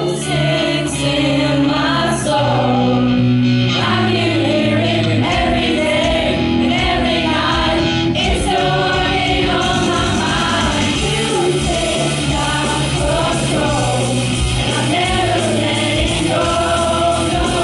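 A group of voices singing a song together over instrumental accompaniment with held bass notes.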